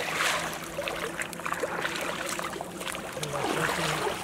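Water splashing and sloshing as men wade and grope with their hands in shallow, muddy water, with a louder splash right at the start.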